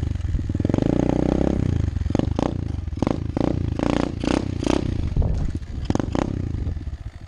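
SSR 125 pit bike's small single-cylinder four-stroke engine running while being warmed up, revving up and easing off early on, with a string of sharp clattering knocks through the middle. The engine drops toward an even idle near the end.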